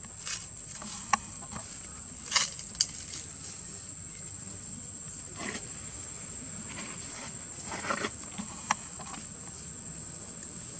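Steady, high-pitched drone of insects, with a few sharp clicks and short rustles over it, the loudest a little past two seconds in.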